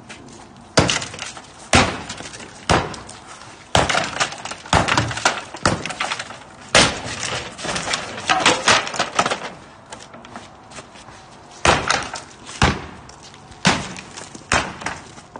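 Wooden lattice-topped fence panels being smashed down: heavy blows roughly once a second, with timber cracking and splintering between them.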